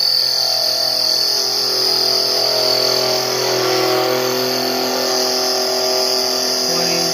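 Metal lathe running with the cutting tool held in a light cut on an aluminum ring blank: a steady machine hum with a high whine above it.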